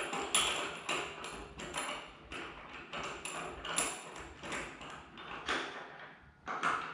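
Repeated short rasping strokes of a hand tool working wood, about two to three a second, uneven in strength, with a louder stroke near the end.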